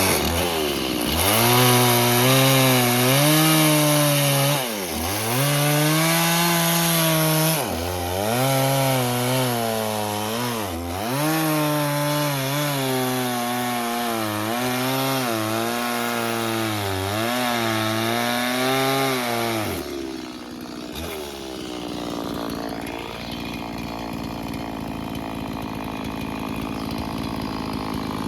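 Stihl MS 170 two-stroke chainsaw running at high revs while cutting wood, its engine note repeatedly dipping sharply and recovering. About two-thirds of the way through the engine sound drops away to a quieter, fainter sound.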